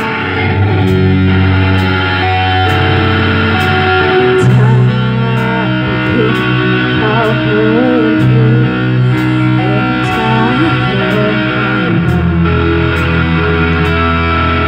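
Live rock band playing: electric guitars over bass and drums, with steady cymbal strikes.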